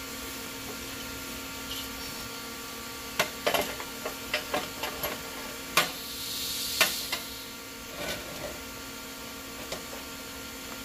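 Metal clicks and knocks from a long-reach locking clamp being set on an aluminum tube resting on a steel welding table, bunched a few seconds in, with a brief scrape, over a steady shop hum.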